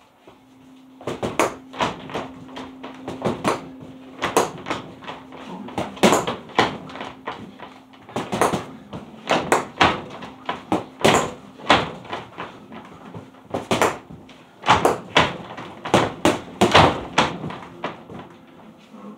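Boxing-gloved punches landing on a freestanding heavy bag filled with sand and water: sharp slaps and thuds in irregular combinations, about one to three hits a second.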